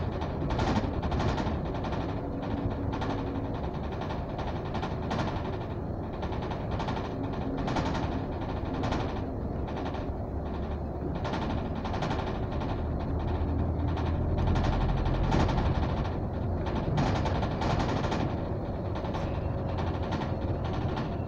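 Double-decker bus driving along, heard from inside on the upper deck: a steady engine and road rumble with irregular rattling and knocking of the bodywork and windows.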